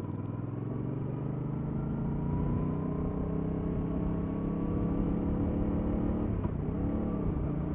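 Yamaha MT-07's 689 cc parallel-twin engine on its stock exhaust, pulling under load with its pitch rising steadily for about six seconds. Near the end the pitch dips briefly and climbs back.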